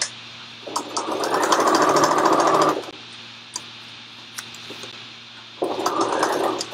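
Janome electric sewing machine stitching through doubled fabric and batting in two runs: a rapid, even clatter of the needle for about two seconds starting just under a second in, a pause, then stitching again near the end.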